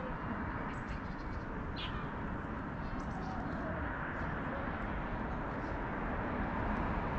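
Steady outdoor background noise, heaviest in the low range, with a few short, faint high chirps about two and three seconds in.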